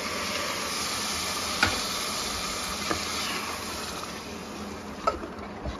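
Milk and cream sizzling as they hit a hot pan of roasted semolina, a steady hiss that thins out in the last couple of seconds. A steel ladle clinks against the pan about three times, sharpest at the first.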